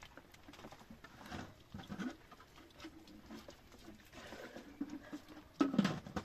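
Goats bleating several times, with the loudest bleat near the end.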